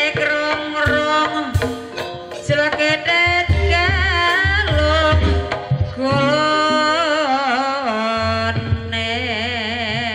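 Javanese gamelan music accompanying an ebeg trance dance: a high, wavering melody line over drum strokes and low drum thumps, with the melody settling into a steady trill about nine seconds in.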